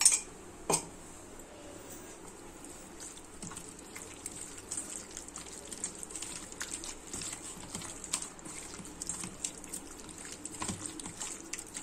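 Hands squishing raw boneless chicken pieces through a wet green masala paste in a stainless steel bowl: faint wet squelching and light patter, with two sharper taps in the first second.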